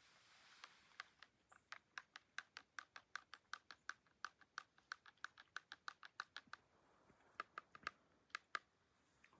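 Faint run of quick, evenly spaced clicks, about three a second, breaking off about six and a half seconds in, then a handful more.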